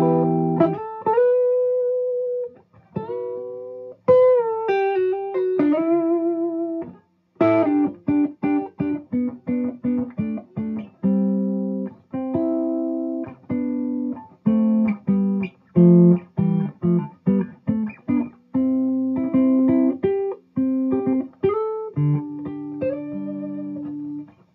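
Clean electric guitar: a Gibson ES-335 on its neck pickup, rolled back to about one, played through a Fuchs Train-45 amp with 6V6 power tubes. Slow single notes with slides and bends at first, then from about seven seconds in a quicker run of picked notes and short double stops.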